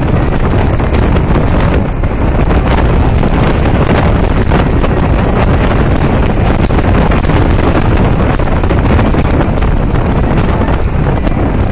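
Heavy wind noise buffeting the microphone of a camera mounted outside a moving car, with the car's road noise underneath.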